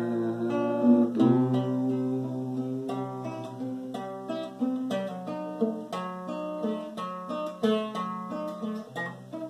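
Acoustic guitar playing an instrumental passage of a slow song, plucked notes and chords with no singing.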